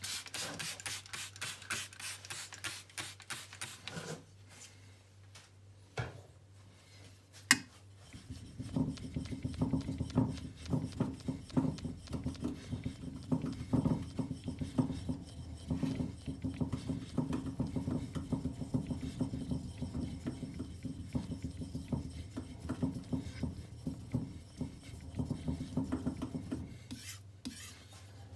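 Back-and-forth strokes on a wet Japanese natural whetstone. They start as a few seconds of quick, scratchy strokes, then, after a pause broken by one sharp knock, run on as about twenty seconds of steadier, duller rubbing strokes that stop shortly before the end.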